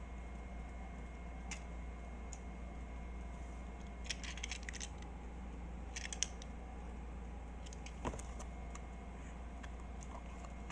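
Faint, scattered clicks and light rattles of small toy packaging being handled during an unboxing, over a steady low hum. The busiest clusters come about four seconds in and again around six seconds.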